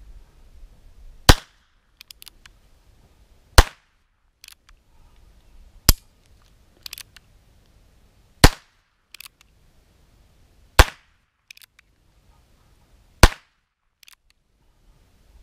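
Six shots of regular .22 Long Rifle fired one at a time from a Tanfoglio TA22 single-action revolver, each a short sharp report, about two and a half seconds apart. Faint clicks come between the shots as the hammer is thumbed back.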